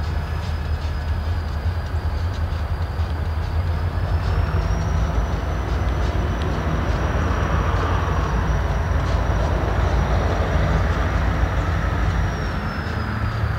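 Diesel locomotives running and moving: a heavy, steady low engine rumble with a thin high whine that rises slightly about four seconds in and drops back near the end.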